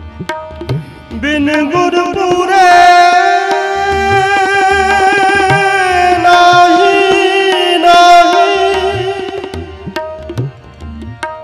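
Sikh kirtan: a male singer slides up into one long, ornamented held note lasting about eight seconds, over a steady harmonium and tabla strokes, before easing off near the end.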